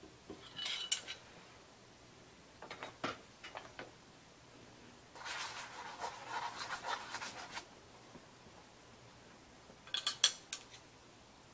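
A heated iron pyrography tool scratching and rubbing across hanji paper in four short bursts; the longest runs about two seconds, in the middle.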